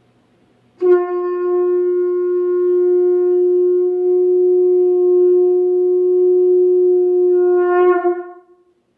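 Conch shell (shankh) blown in one long steady note lasting about seven and a half seconds, wavering briefly near the end before it fades out.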